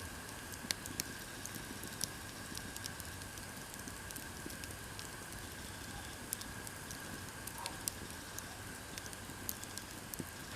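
Split-firewood campfire crackling: sharp, irregular pops and snaps over a steady hiss.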